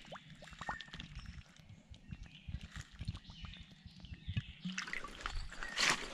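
Old glass bottle being rinsed out under shallow creek water: water sloshing and trickling around it, with a few gurgles as it fills and a louder splash near the end.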